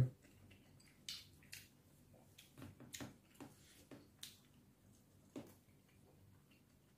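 Quiet eating sounds: a scattered handful of short, soft clicks and smacks from chewing and from fingers mixing rice on a plate, fading out after about five seconds.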